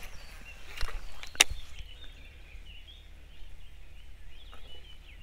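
Small birds chirping in the background, with a short swish and a sharp click about one and a half seconds in.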